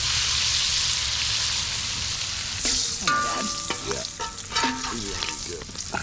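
Andouille sausage slices sizzling in hot oil in a 17-inch cast iron skillet. The sizzle eases about halfway through as the slices are scooped out, and a steel spatula scrapes and clinks against the pan.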